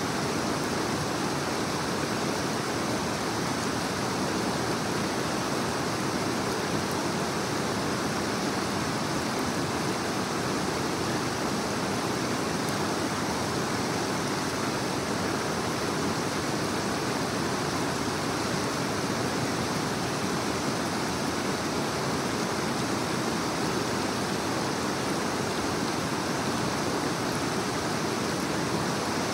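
Oak Creek rushing over rocks in small rapids: a steady, even roar of flowing water.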